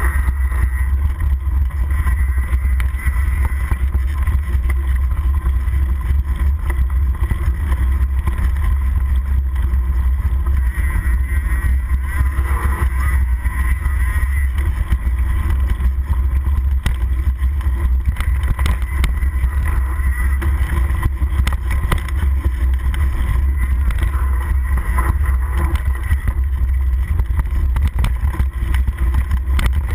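Steady, heavy low wind noise on the microphone of a handlebar-mounted camera as a mountain bike rides fast down a dirt trail, mixed with the constant rattle and crunch of tyres and frame over the rough ground.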